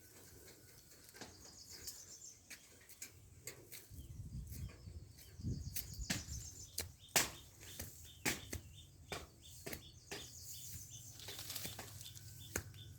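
Scattered sharp clicks and rustles, with high, rapidly repeated chirping trills of small birds in the background.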